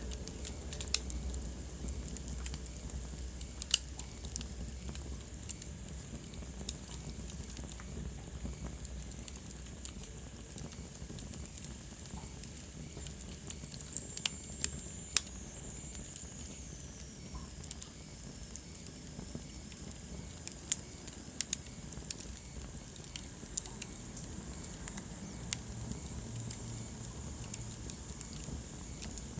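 Wood fire burning in a fireplace, with a steady soft hiss and frequent irregular sharp crackles and pops. About halfway through, a faint high whistle slides down in pitch.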